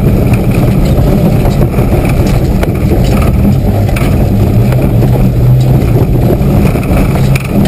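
Mitsubishi 4x4's engine running hard, heard from inside the cabin as it is driven over a rough dirt track, with scattered knocks and rattles from the body over the bumps.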